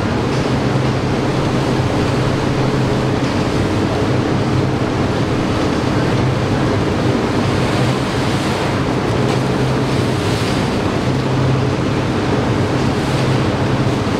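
Tea withering-trough fans blowing air through the heaped fresh leaves: a steady loud rush of air over a low machine hum, with faint leaf rustling from the leaves being tossed by hand.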